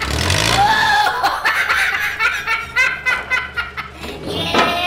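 A high-pitched voice laughing and snickering in short laughs.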